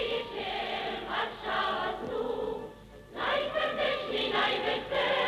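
Choir singing with musical accompaniment, an old, dull-sounding recording, with a brief lull about halfway through before the voices swell again.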